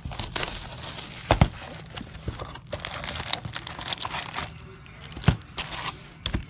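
Plastic wrapping on a trading-card box being torn and crinkled, with sharp crackles and snaps throughout.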